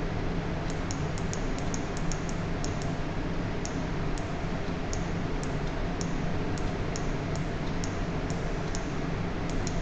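Computer mouse scroll wheel clicking as a document is scrolled: irregular runs of quick, light ticks, bunched at the start and near the end with sparser ticks between, over a steady room hum.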